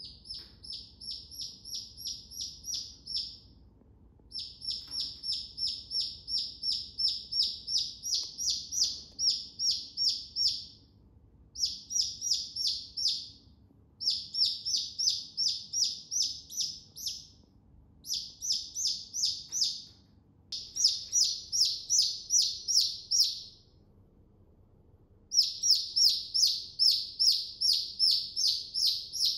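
Chicken chick peeping: runs of short, high peeps, about four a second, broken every few seconds by pauses of about a second.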